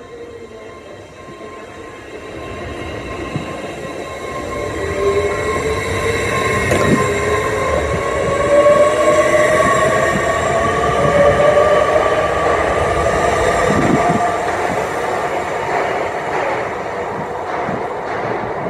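A passenger train passing close by and pulling away, its running noise growing louder and then easing off. It carries a whine that rises in pitch as it gathers speed, with two dull knocks along the way.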